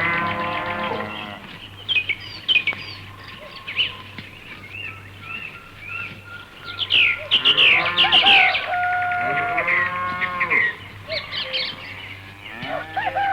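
A cow mooing several times in long calls that rise and fall in pitch, with small birds chirping in between.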